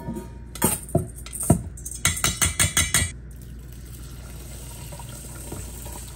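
A metal mesh strainer knocked against a stainless steel mixing bowl to tip rinsed rice in: a few separate knocks, then a quick run of about eight. After about three seconds, hot water pours steadily from a glass measuring cup onto the rice in the bowl.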